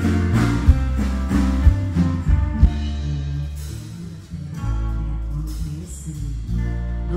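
Live band playing an instrumental passage over a PA: strummed acoustic guitar over bass and drums. The strummed strokes give way to held notes about halfway through.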